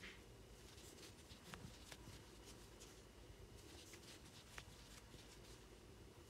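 Faint, scattered soft clicks and rustles of a crochet hook working yarn, over near-silent room tone.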